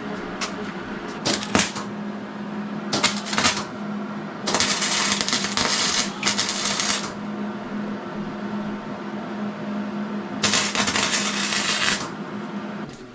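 Hobart Handler 140 wire-feed welder arcing on very thin sheet steel: four bursts of crackling and sizzling as the arc is struck and broken, the longest lasting a couple of seconds, over a steady low hum.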